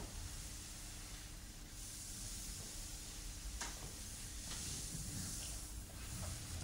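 Soft hissing noise that swells about two seconds in, with a few faint clicks and a low rumble underneath.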